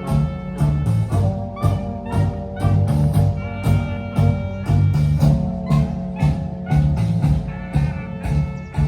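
Live music from a small band, with a steady beat of about two strokes a second, a strong bass line and sustained instrumental notes over it.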